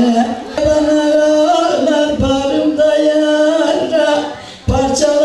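A woman's voice singing a mersiye, a Muharrem lament, holding long wordless notes that slide from pitch to pitch, with a short breath pause near the end.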